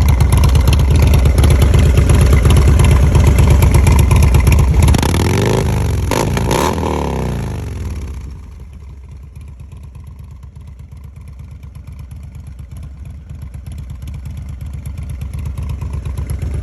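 Harley-Davidson Dyna Low Rider S V-twin running loud through an MCJ 2-into-1 exhaust, with a couple of revs rising and falling in pitch about five to seven seconds in. It then drops much quieter and slowly grows louder again near the end.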